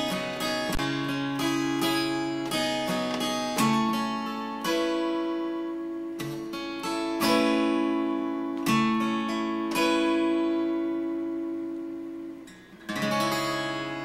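Solo acoustic guitar playing the instrumental close of a song: picked notes and chords that ring and fade, coming more slowly as it goes, then a brief drop about twelve and a half seconds in before a last chord rings out.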